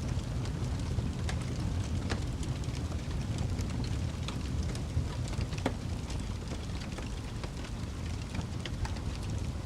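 Fire burning with a steady low rumble and irregular sharp crackles and pops.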